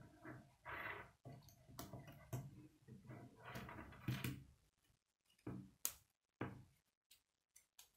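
Plastic K'nex pieces clicking and rattling as hands fit gears and rods onto the frame, with a sharp snap every second or so among softer rustling. The handling grows fainter and sparser after about five seconds.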